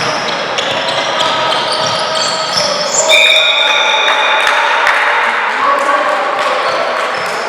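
Basketball game in a gym: a ball bouncing on the court, sneakers squeaking, and players and spectators talking and calling out, echoing in the hall. A strong high squeal lasts about a second, starting about three seconds in.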